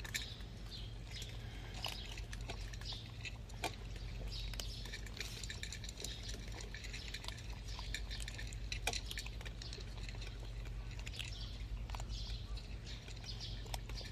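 Cats crunching dry kibble, a quick irregular run of small crunches and clicks, over a steady low hum.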